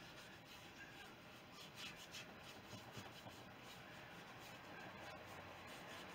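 Near silence, with faint brushing of a paintbrush laying oil paint onto canvas now and then.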